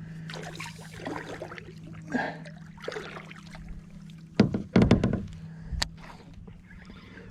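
Water splashing and knocks and thumps against a kayak as a hooked fish is brought aboard, loudest in a cluster of thumps about four and a half seconds in.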